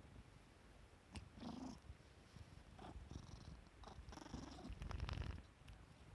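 Domestic cat purring faintly in waves, loudest about five seconds in, with a short click and a few brief small sounds in between.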